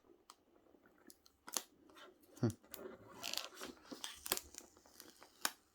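Fingers picking and scraping at the peel-off seal strip on a cardboard keyboard box: short tearing and crinkling scrapes broken by a few sharp clicks. The strip is not coming away cleanly.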